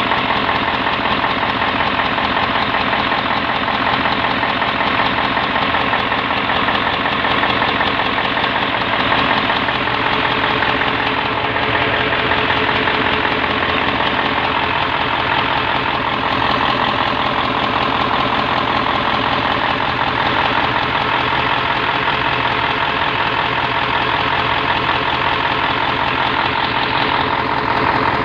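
Freshly overhauled Mitsubishi Fuso 8DC9 V8 diesel engine running steadily at idle.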